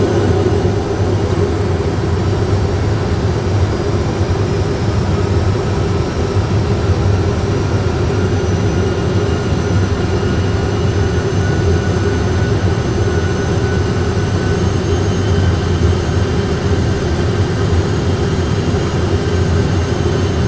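Steady low rumble and hiss of Airbus A320 cockpit noise in a flight simulator on autopilot approach with the gear down, holding level with no change.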